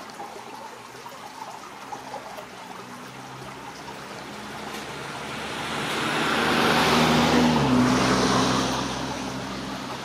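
A vehicle passing on a nearby road: a hiss of tyre noise swells to a peak about seven seconds in and then fades, while the low engine hum drops in pitch as it goes by.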